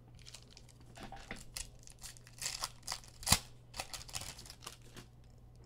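Trading-card pack wrappers being torn open and crinkled as the cards are handled: a string of short rips and rustles, the loudest a little over three seconds in.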